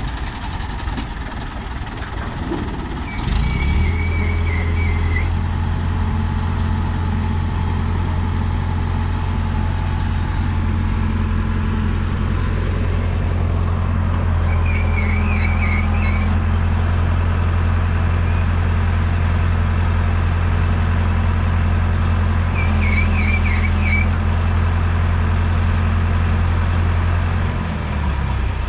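Heavy diesel engine, as on the Hydra cranes or the stuck truck, revs up about three seconds in and runs steadily while pulling the truck out of the sand, then drops back near the end. A short, high, wavering signal tone sounds three times over it.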